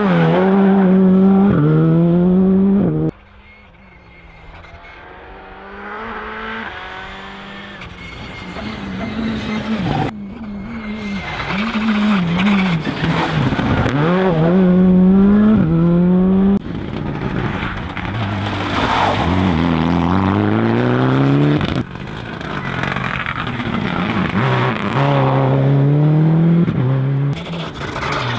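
Škoda Fabia R5 rally cars' turbocharged four-cylinder engines driven hard through a corner, one pass after another. The engine note climbs and drops sharply with each gear change and lift, and one car is heard approaching from a distance and growing louder. The passes are cut abruptly into one another several times.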